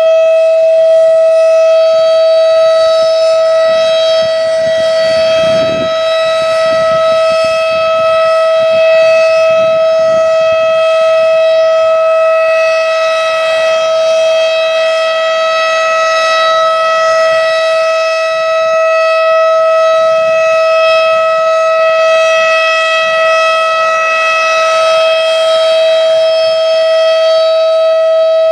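Federal Signal Thunderbeam 12-port tornado siren sounding one loud, steady tone that holds its pitch throughout, with a rich stack of overtones. Wind buffets the microphone underneath, strongest about five seconds in.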